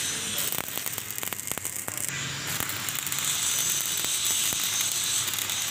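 Stick (arc) welding on steel: the arc strikes about half a second in, then crackles and sizzles steadily as a support brace is welded onto a trailer's steel channel.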